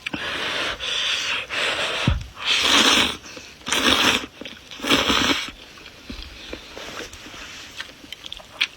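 A person slurping rice noodles, about six loud slurps in quick succession, followed by quieter chewing with small wet clicks.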